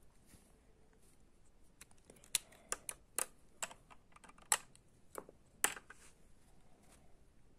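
A run of sharp, irregular plastic clicks, about a dozen from about two seconds in: electronics-kit parts being handled and snapped together while the fan circuit is assembled.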